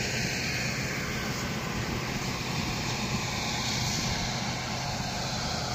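Steady drone of a forage harvester running in a maize field, chopping the crop for silage.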